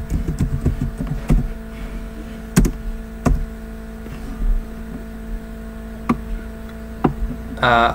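Computer keyboard being typed on, a quick run of keystrokes followed by a few single clicks spread out over several seconds, over a steady electrical hum.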